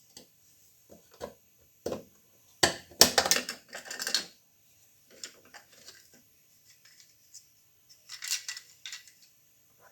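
Metal tools and parts clinking and clattering as they are handled, in irregular clicks with a longer rattle of clatter a few seconds in and another short cluster near the end.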